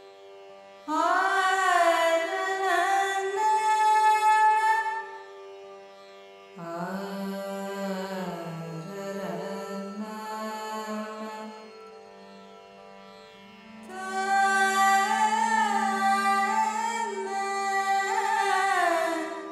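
Carnatic alapana in raga Ranjani: three unhurried melodic phrases of sliding, ornamented notes over a steady drone. The middle phrase is lower in pitch and softer.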